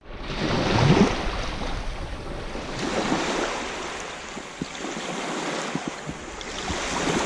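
Small lake waves washing up on a sand-and-pebble shore, a noisy wash that swells and fades every few seconds.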